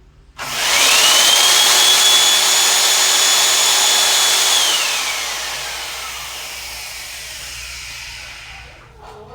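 Electrolux Easybox 1600 W vacuum cleaner switched on: its motor whine climbs within about half a second, runs steady and loud for about four seconds, then drops in pitch as it is switched off and winds down over several seconds.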